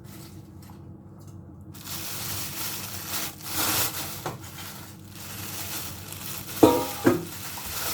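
Fish and plastic bags being handled at a kitchen counter: rustling over a steady hiss that sets in about two seconds in, with two short sharp squeaks about a second from the end.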